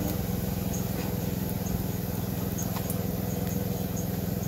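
Boat engine running steadily, a low even drone, with a few faint clicks over it.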